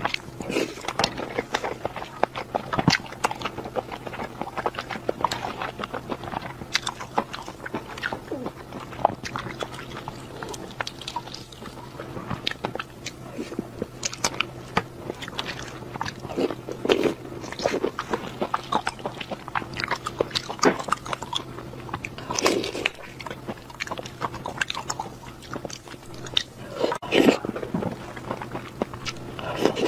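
Close-miked eating: a person biting and chewing food taken off skewers, a dense run of small wet clicks and crunches, with a few louder bites in the second half.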